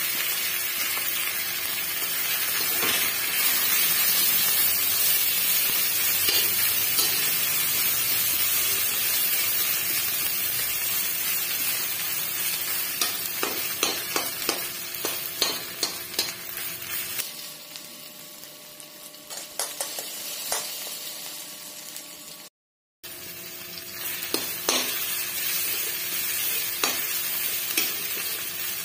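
Crushed ginger sizzling in hot mustard oil in an iron kadai, with a slotted steel spatula scraping and clicking against the pan as it is stirred. The sizzle drops quieter for a few seconds after the middle and breaks off for an instant before going on.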